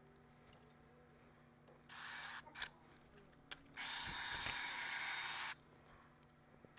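Aerosol can of spray lubricant hissing in bursts: a half-second spray about two seconds in, a brief one just after, then a longer spray of nearly two seconds.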